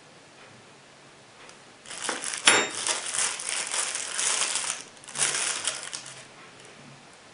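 Thin plastic bags crinkling as metal cutlery is handled and pulled out of them, with one sharp metallic clink about two and a half seconds in. The crinkling comes in two spells, the first longer.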